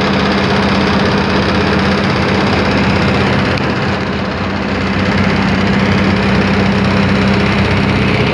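An engine running steadily at a constant speed: a loud, even drone with a steady low hum, easing off slightly about four seconds in.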